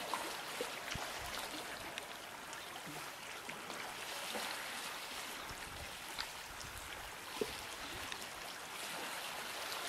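Gentle water lapping and trickling, a steady wash with scattered small ticks and splashes.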